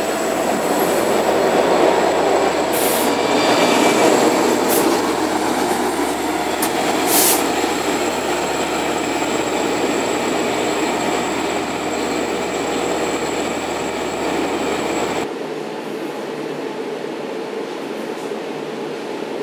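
A Long Island Rail Road train of C3 bilevel coaches, with an EMD DE30AC diesel locomotive at one end, rolling slowly alongside the platform: wheels squealing on the rails, several sharp clicks, and the locomotive running. About fifteen seconds in, this gives way to a quieter steady hum inside a coach.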